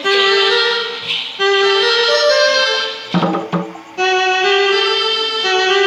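Electronic keyboard playing a joget-style melody in a reedy wind-instrument voice, in long held notes, with a couple of drum hits about three seconds in before the melody resumes.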